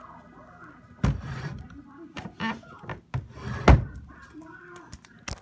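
A few knocks and thumps, the loudest about three and a half seconds in, with faint voices underneath.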